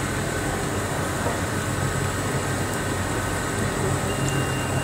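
Wire-cut EDM machine running in a cut: a steady machine hum with the hiss of working fluid pouring and splashing over the workpiece. A thin, steady high whine comes in near the end.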